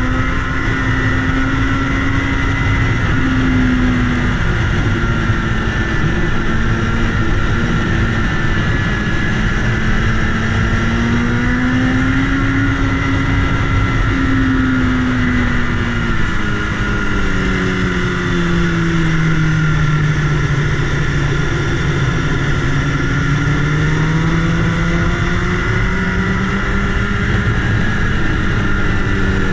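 BMW S1000RR inline-four engine running at road speed under heavy wind noise on the microphone. Its pitch rises and falls with the throttle, dipping lower about two-thirds of the way through before climbing again.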